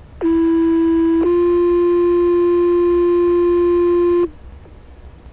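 Two-tone sequential fire pager alert tones over a fire-department radio channel, received on a Baofeng UV-5R scanner. A lower tone sounds for about a second, then steps up to a slightly higher tone held for about three seconds, and it cuts off suddenly.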